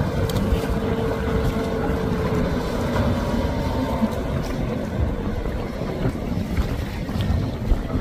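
Yamaha outboard motor on a center-console boat running at speed as it passes close by, with the hiss of its wake and spray. Wind rumbles on the microphone throughout.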